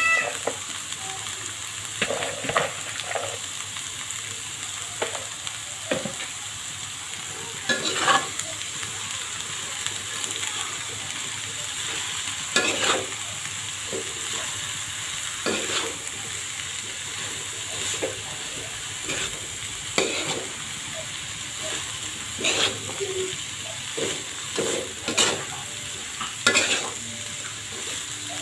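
Shredded young jackfruit and spice paste sizzling in oil in a wok, with a steady hiss, while a metal spatula scrapes and turns it with irregular knocks against the pan.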